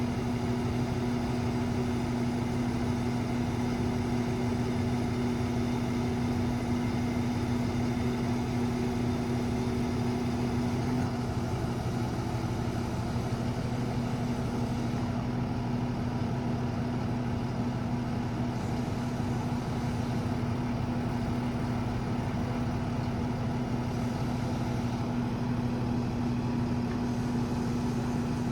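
Cummins diesel of an International 4400 crane truck running steadily, a continuous hum with a strong low drone, powering the crane's hydraulics while the hook is winched down and the boom extended.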